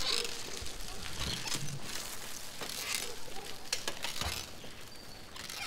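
Outdoor ambience: a steady rushing hiss with scattered crackles and a few soft low thumps.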